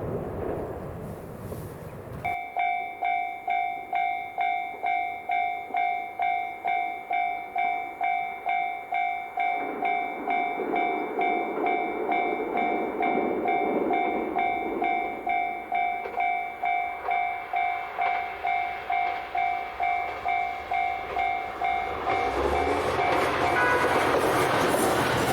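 Railway level-crossing warning bell ringing at about two dings a second, starting about two seconds in. Near the end a train's running noise grows louder as it approaches.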